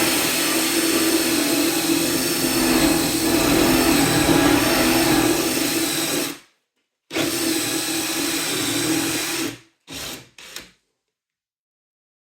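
Electric drill boring the cup hole for a concealed Euro hinge into a wood panel. It runs steadily for about six seconds, stops, runs again for nearly three seconds, then gives two short bursts.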